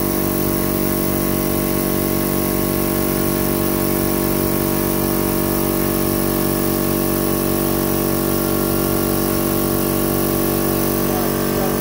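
Clarke 100-litre, 14 CFM air compressor's motor and piston pump running steadily with a fast, even throb, working flat out to supply a sandblast cabinet. It cannot keep up with the air demand, and the motor risks overheating.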